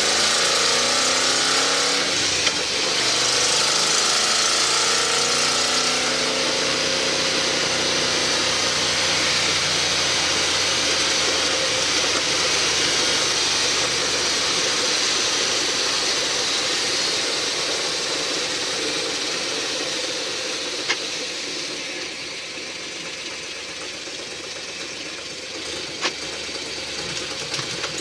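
Boss 302 V8 of a Ford F100 pickup running under way, heard from inside the cab together with road noise. The engine pitch shifts over the first few seconds and the sound eases off for a few seconds near the end, with two short sharp clicks.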